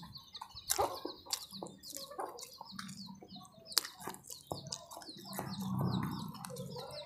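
Wet chewing and lip-smacking clicks of a person eating fried fish and rice by hand, with small birds chirping in the background. A low hum swells and fades in the second half.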